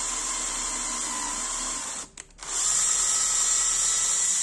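Electric drill boring into the metal base of a finned heatsink, the motor running with a steady whine. It stops briefly about two seconds in, then starts again, louder.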